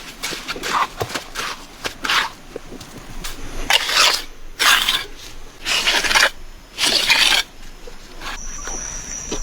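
Repeated rough scraping strokes, about one a second and each about half a second long, loudest in the middle of the stretch. A steady high tone comes in near the end.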